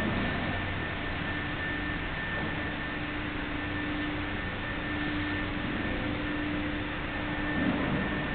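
Steady background noise: an even hiss with a faint low hum and a thin, high steady whine, and a brief low swell near the end.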